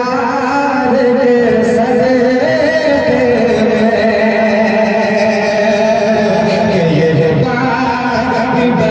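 A man singing a naat, an Urdu devotional poem in praise of the Prophet, into a microphone, in long held and ornamented notes with no break.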